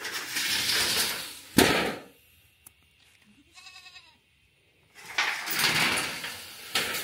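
Corrugated metal roofing sheets scraping and rattling as they are lifted and dragged over grass, with a loud clang about a second and a half in. A goat bleats once in the lull near the middle.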